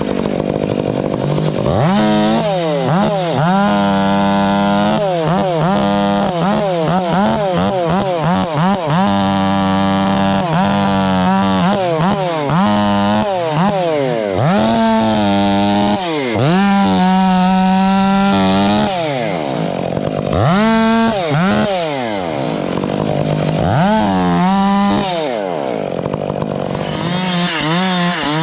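Two-stroke chainsaw bucking a spruce log, its engine revving up and dropping back again and again as the throttle is worked through the cuts.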